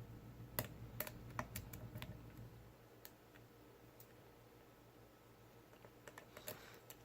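Faint small metallic clicks of a Peterson Gem pick and tension wrench working the pin stack inside a Lockwood 334S45 padlock. A run of clicks comes in the first two seconds and a few more near the end.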